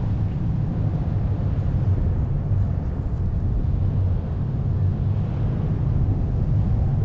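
Wind buffeting the camera microphone in flight under a paraglider, a steady low rumble.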